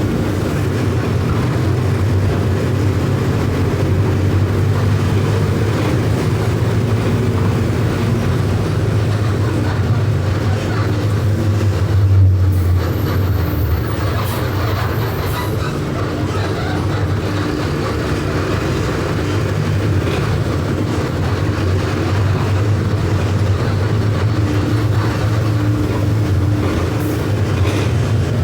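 Mercedes-Benz OF 1519 bus's four-cylinder electronic diesel engine running steadily under way, with a brief louder swell about twelve seconds in.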